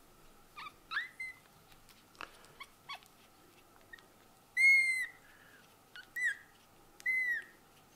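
A very young kitten, its eyes just opened, mewing in short high-pitched squeaks: a few brief ones early, then several louder, longer mews, the loudest about halfway through.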